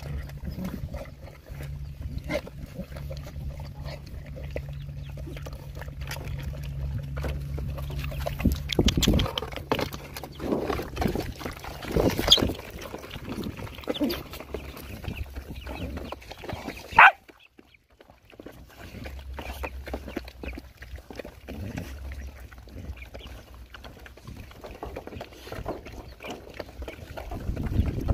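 Dogs and puppies eating together from one bowl: many small wet smacks, laps and chewing clicks over a low steady hum. About two-thirds of the way through there is one short, sharp, high-pitched squeal.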